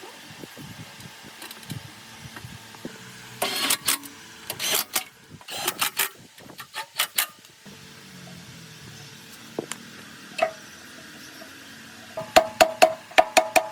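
Metal parts and tools clinking and knocking during workshop work on a drill press. Near the end comes a quick run of sharp metal taps, about six a second, each one ringing, and these are the loudest sounds.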